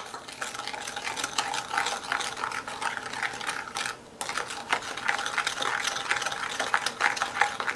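Antique hand-cranked rotary egg beater whirring, its gears clicking steadily as it mixes egg, milk and sugar, with a brief stop about four seconds in.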